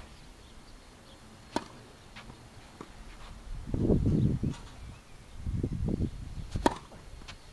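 Two sharp tennis-ball knocks, one about a second and a half in and a louder one near the end, with dull low rumbles between them.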